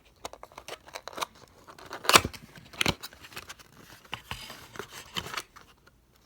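Trading card pack being opened and handled: crinkling wrapper and a run of sharp clicks and snaps, loudest about two and three seconds in.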